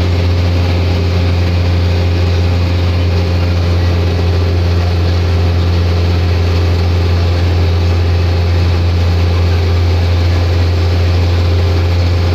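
Steady drone of a minibus cruising at highway speed, heard from inside the cabin: engine and road noise under a strong, constant deep hum.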